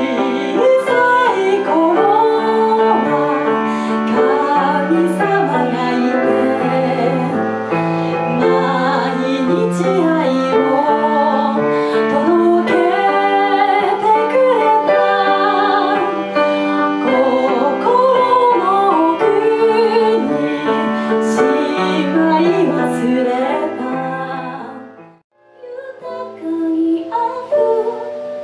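A woman singing into a microphone with grand piano accompaniment. About 25 seconds in the music drops out for a moment, then a new song begins, again a woman singing over piano.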